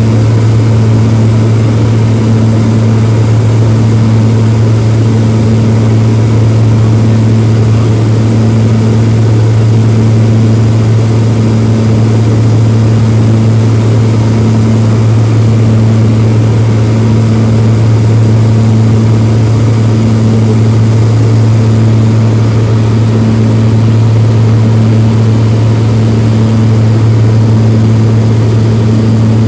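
Seaplane's propeller engines running steadily in flight, very loud from inside the cabin: an even, unchanging low drone.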